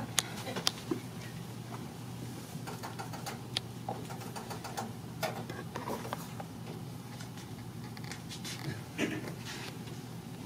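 Quiet stage room tone: a steady low hum with scattered light clicks and knocks, a few more of them near the end as a man steps across the wooden stage floor.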